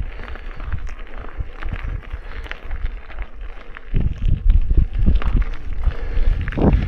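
Mountain bike moving over a rough dirt trail: irregular crunching and rattling clicks over a low rumble, which grows louder about four seconds in.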